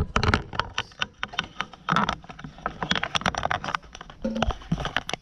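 Irregular clatter of knocks, clicks and rustles, several a second, from gear being picked up and carried by hand.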